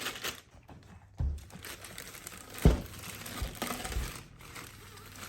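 Packaging rustling and crinkling as the parts of a new shotgun are handled in its box, with a few dull knocks, the loudest about two and a half seconds in.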